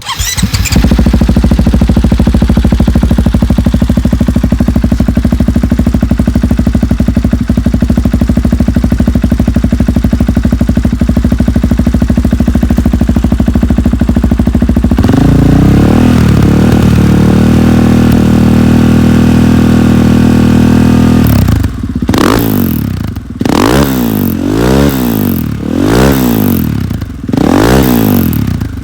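KTM 500 XCF-W single-cylinder four-stroke dirt bike engine through an FMF 4.1 RCT muffler with the quiet insert removed: it starts, idles steadily, steps up to a higher steady speed about halfway through, then is blipped up and down six or seven times near the end. The open exhaust is way louder than the rider would accept for trail riding.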